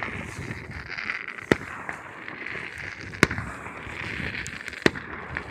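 Aerial fireworks exploding: three sharp bangs about a second and a half apart, over a steady hiss.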